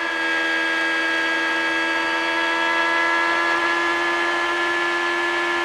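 IndyCar's Honda 3.5-litre V8 running flat out at steady high revs, heard from the onboard camera on the car: one high, even engine note that holds its pitch throughout.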